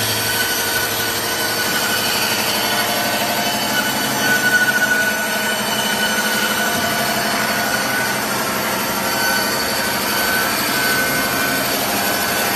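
Wood board band saw running and sawing a plank as its rollers feed it through: a loud, steady machine drone with a high whine, swelling briefly about four seconds in.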